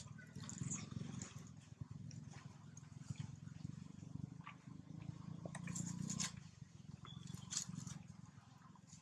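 Rustling and crackling in dry leaves and twigs as monkeys move about, over a steady low rumble that eases after about six seconds.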